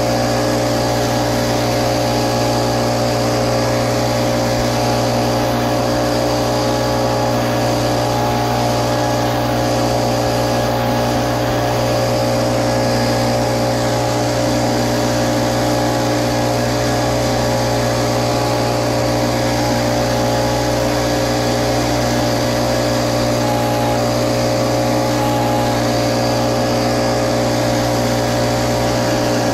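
Little Wonder Optimax walk-behind blower running steadily at a constant engine speed, its small gas engine and fan blowing pine needles across the ground.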